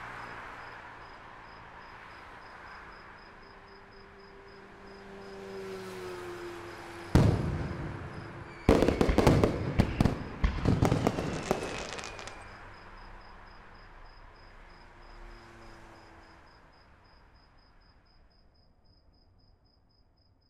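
A firework going off: one sharp bang, then after about a second and a half several seconds of dense crackling that dies away. Crickets chirp steadily underneath.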